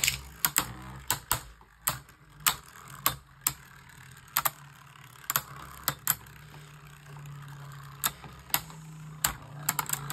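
Two Beyblade Burst tops, Tornado Wyvron and a red Wyvron, spinning and clashing in battle: sharp plastic clicks at irregular intervals, about two a second.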